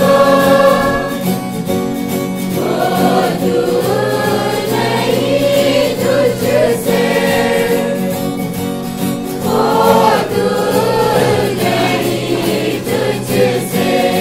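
Church choir of mostly women's voices singing a Christmas carol together in sung phrases.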